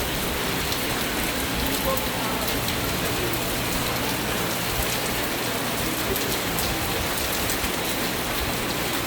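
Heavy rain pouring steadily, with scattered drops ticking on nearby surfaces.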